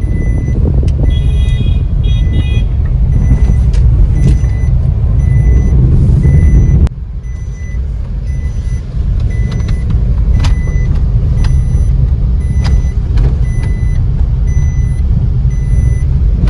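Road noise of a car driving in traffic: a loud, steady low rumble with scattered clicks, a short horn-like toot about a second in, and a sudden drop in level about seven seconds in.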